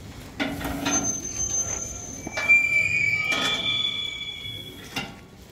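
Metal spit and crank of a šakotis roasting oven squealing as it is turned, giving several long high-pitched squeals at different pitches that overlap, with a few knocks of metal on metal.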